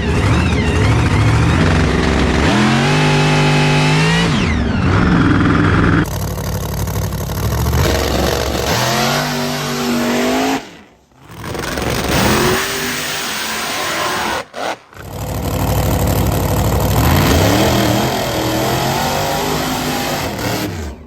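Supercharged Chevrolet V8 of a 1968 first-gen Camaro drag car, loud and revving up and down repeatedly, with the sound cutting off abruptly several times.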